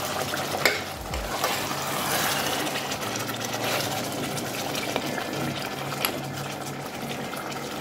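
Wooden spoon stirring simmering mutton curry in a metal pot: thick gravy bubbling and sloshing, with a few light clicks.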